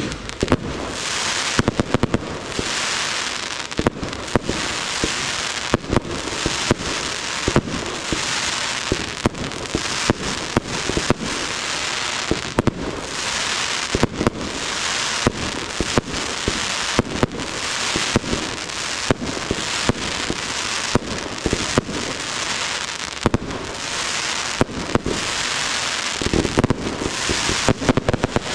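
Aerial fireworks display: frequent sharp bangs of shells launching and bursting, roughly one or two a second, over a steady dense hiss.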